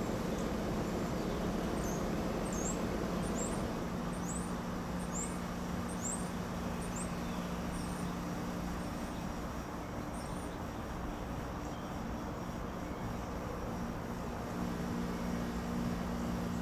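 Small birds giving short, high, down-slurred chirps, repeated several times over the first half and once more later. They sit faintly over a steady low rumble and hum, which is the loudest sound throughout.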